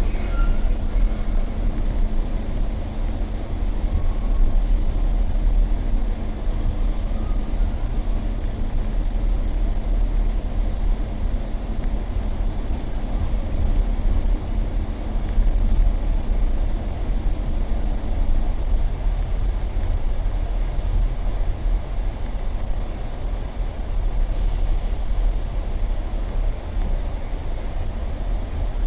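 Train's steady low rumble, with a faint steady hum that stops about eighteen seconds in.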